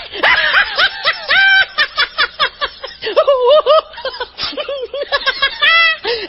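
Cartoonish laughter sound effects in quick succession: rapid high-pitched snickering and cackling bursts, each pulse arching up and down in pitch, with a few shifts in voice and pitch along the way.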